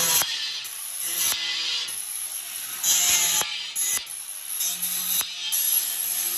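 Angle grinder cutting a round hole in a floor tile: a steady motor hum, with the high-pitched grind of the disc in the tile starting and stopping about once a second as the cut is made in short passes.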